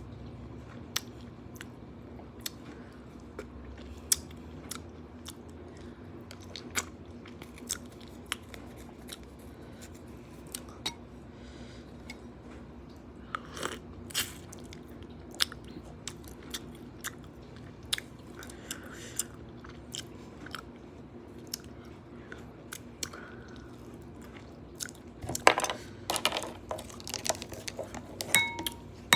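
Close-miked chewing and biting of noodles and crunchy fresh vegetables, with sharp wet clicks scattered throughout. A burst of louder clicks and knocks comes near the end.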